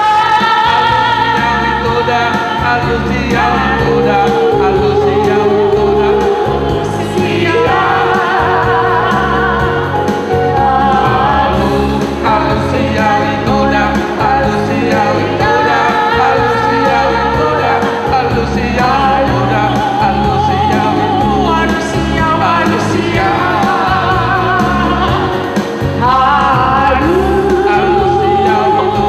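A man and a woman singing a duet through microphones, with vibrato, over instrumental backing music.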